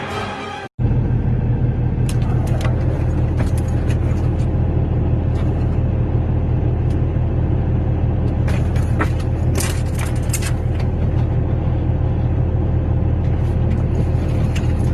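A steady, loud low rumble with scattered sharp clicks and knocks, most of them about halfway through.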